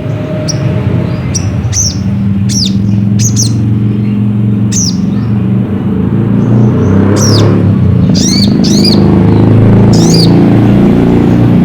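Crimson sunbird calling: about nine short, high-pitched chirps, each a quick arched or falling note, spaced irregularly. Under them runs a loud, steady low rumble that swells in the second half.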